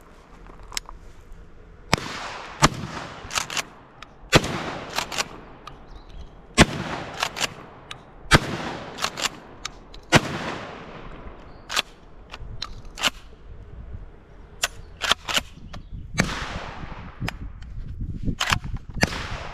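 Benelli SuperNova 12-gauge pump-action shotgun fired about five times, roughly two seconds apart, each shot echoing as it fades, with sharp clacks of the pump action between shots. Near the end come more sharp clicks and knocks as the action is worked and the gun is handled.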